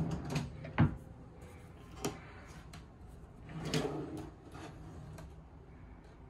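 Wooden dresser drawer sliding and shutting with a sharp knock about a second in. Another wooden drawer then slides open a few seconds later, with a light click or two.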